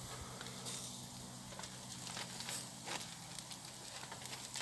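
Campfire embers crackling under a grill of cooking steaks, with sparse irregular pops over a soft hiss.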